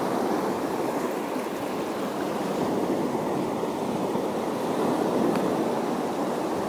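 Waves washing against the shore: a steady rush of water noise with no distinct breaks.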